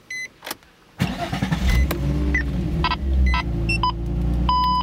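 A Nissan 350Z's 3.5 L VQ V6 with aftermarket test pipes, Y-pipe and cat-back exhaust starting about a second in, then running steadily. A short electronic chime sounds right at the start, and a few electronic beeps come near the end.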